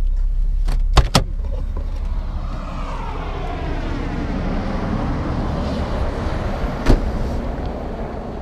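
Two sharp clicks about a second in, fitting a vehicle door being unlatched and opened. Then a steady low rumble with outdoor noise, and a single sharp knock near seven seconds.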